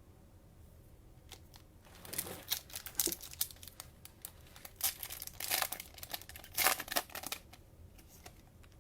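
Cellophane trading-card pack wrapper crinkling and tearing open, in a run of irregular crackles that starts about two seconds in and stops shortly before the end.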